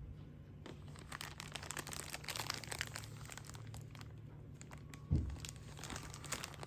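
A cat grappling a kicker toy: rapid scratching and crinkling rustle of claws on the toy's fabric, with one dull thump about five seconds in.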